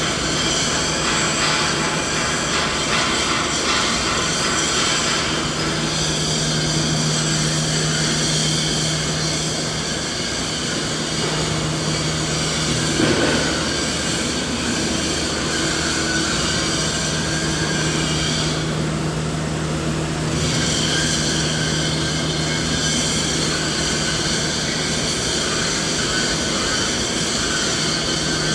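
Continuous machine noise: a steady low drone under a broad, even hiss, with no rhythm or breaks. The high hiss briefly thins out about nineteen seconds in.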